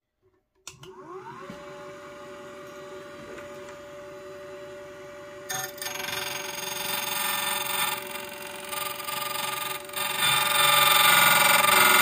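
Battery-powered Xhorse Condor XC-009 key cutting machine: its motor spins up with a rising whine just under a second in and then runs steadily. About halfway through, the cutter wheel starts cutting a key and the sound gets much louder, louder again near the end.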